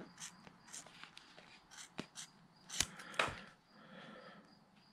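Faint handling noises of a clear plastic ruler and a rubber inner tube being shifted in the hands: scattered soft clicks and rubs, with two sharper ticks about three seconds in.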